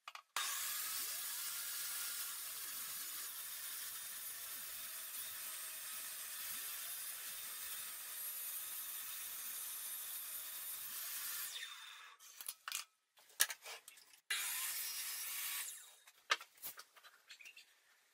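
Table saw running and ripping a thin plywood strip, a steady hiss for about eleven seconds that then dies away. A few sharp knocks of wood being handled follow, then a second short run of the saw and more clicks.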